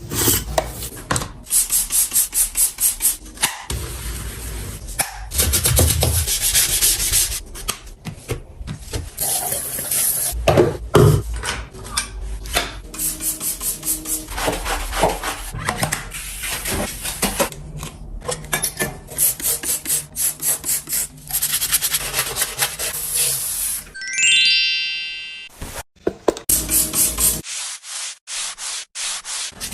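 Rapid back-and-forth rubbing or scrubbing strokes, several a second, coming in long runs with short breaks between them. About 24 seconds in there is a brief tone that slides upward in pitch.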